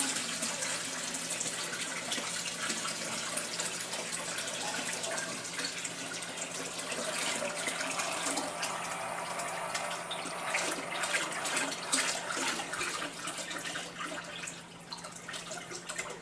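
Water being poured into a saltwater aquarium, splashing and bubbling steadily into the tank water, easing off near the end.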